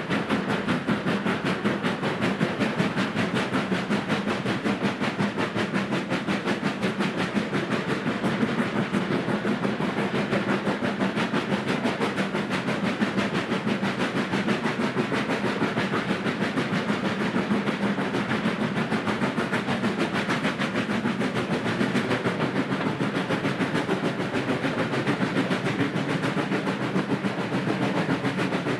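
Ivatt 2-6-2T tank steam locomotive's two-cylinder exhaust beating in a quick, even rhythm, heard close behind the engine as it hauls its train. It is working hard under load, climbing a bank.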